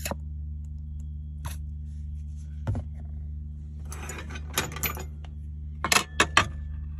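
A few scattered knocks and a scratchy handling noise, then several sharp clinks close together near the end, the clink of a metal fork against a plate, over a steady low hum.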